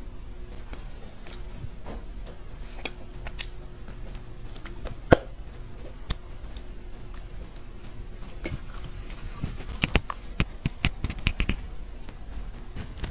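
Macaron being eaten close to the microphone: soft crunches and mouth clicks as the crisp meringue shells are bitten and chewed. There is one sharp click about five seconds in and a quick run of crisp clicks and crackles later on as another macaron is handled near the microphone.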